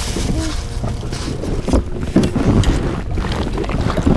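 Wind buffeting the microphone aboard a small inflatable boat at sea, a steady low rumble.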